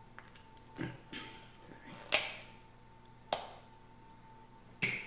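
Shellfish shells (snow crab legs and crawfish) cracked and snapped apart by hand: four sharp cracks, the loudest about two seconds in.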